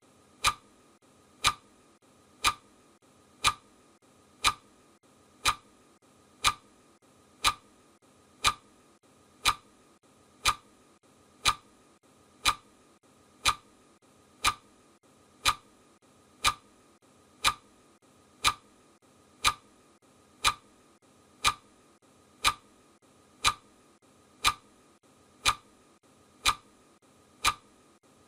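Clock ticking steadily, one sharp tick a second, counting off the seconds of a countdown timer.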